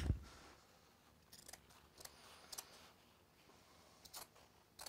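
Scissors snipping through printed cotton fabric: a thump at the very start, then a run of quiet, irregular snips as the blades work around a shape.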